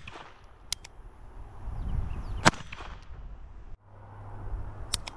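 A single sharp crack of a .22 Long Rifle shot from a Bond Arms Stinger RS derringer about halfway through, with a short ringing tail. Fainter sharp clicks come in pairs shortly before it and again near the end.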